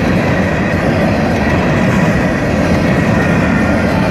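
Freight train of covered hopper cars rolling past close by: a loud, steady rumble of steel wheels on the rails.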